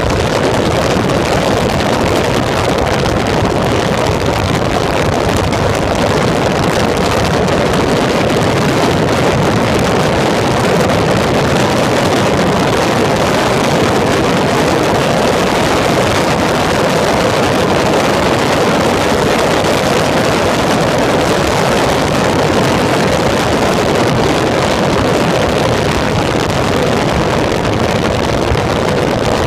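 Onboard sound of a Peugeot racing prototype at speed on track: a steady, loud mix of the car's engine running and wind rushing over the microphone.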